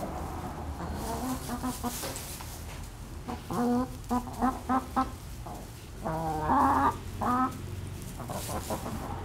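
Hens clucking: a quick run of short clucks about a third of the way in, then a louder, longer burst of calls a little past the middle.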